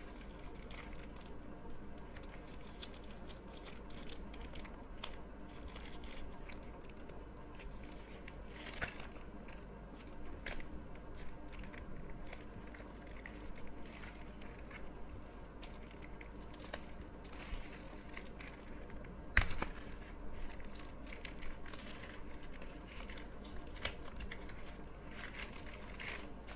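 Packaging crinkling and rustling as a drone battery charging hub is unwrapped and handled, with scattered small clicks and knocks. One sharper click comes about two-thirds of the way through.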